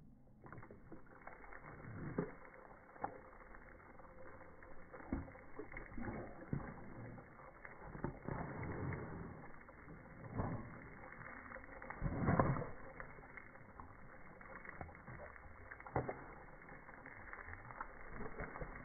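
Slowed-down, muffled sound of a Rottweiler biting at water spray from a garden hose: several low, drawn-out splashes and snaps, the loudest about twelve seconds in, over a faint steady hiss.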